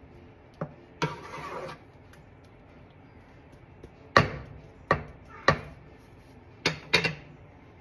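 Wooden spatula knocking sharply against the rim of a metal pot of thick cream sauce, with a short scrape of stirring about a second in; five more knocks come in the last few seconds.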